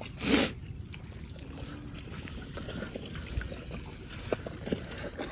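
Napier grass stem cuttings pushed by hand into wet mud beside a flooded irrigation furrow: a short wet splash a moment in, then faint trickling water with a few soft squelches.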